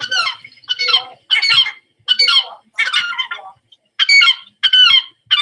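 Herring gull calling: a rapid series of short, loud calls, about eight in five seconds, each under half a second long.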